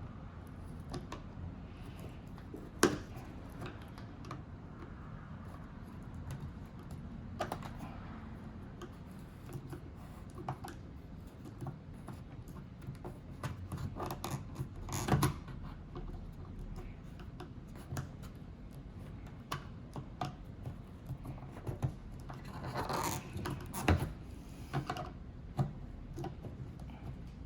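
Irregular light clicks and scrapes of metal parts being handled while a replacement car power antenna is tightened down onto its rubber seal, with a few sharper clicks spread through.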